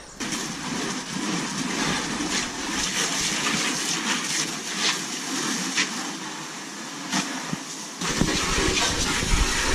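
Garden hose spraying water onto a plastic kayak hull, a steady hiss of water with a few small knocks. A low rumble joins it near the end.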